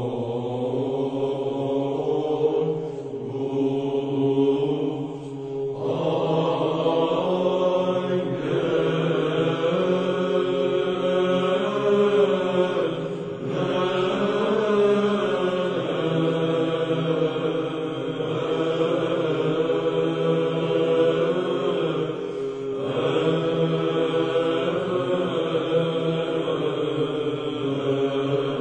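Greek Orthodox Byzantine chant laid over the footage as background music: sung melodic lines over a held low drone, with short breaks between phrases.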